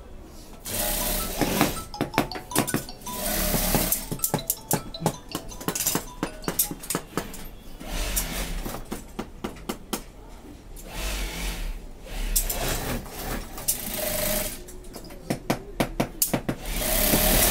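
Industrial sewing machine running in short bursts, amid irregular clicks and clatter.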